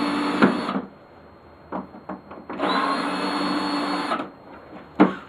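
Cordless drill-driver running in two short bursts, backing screws out of the lawnmower's plastic housing to open it, with light clicks and knocks between the bursts.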